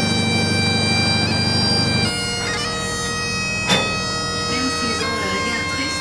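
Bagpipe music. A long held note over a steady drone runs until the drone drops away about two seconds in, and a slow melody of held notes follows. A single sharp click sounds near the middle.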